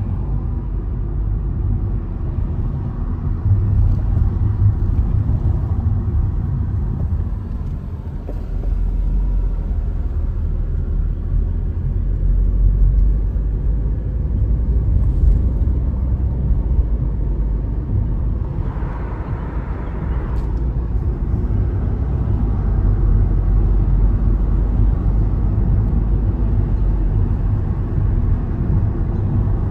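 Steady low rumble of a car driving along a city road, the road and engine noise heard from inside the cabin.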